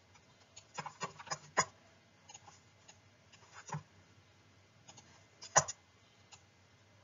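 Scattered light clicks and taps from sketching on a computer: a quick cluster about a second in, another tap near the middle and a sharper one about five and a half seconds in, over a faint steady hum.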